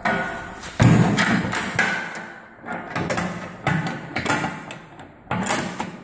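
The metal rear engine-access door of a Bobcat 642 skid steer being worked and banged against its frame and latch: a string of irregular sharp clanks and thumps.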